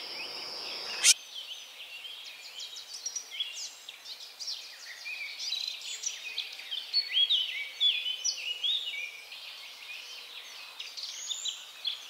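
Several songbirds singing and calling over one another in a dense chorus of short chirps, trills and sweeping notes, after a brief sharp click about a second in.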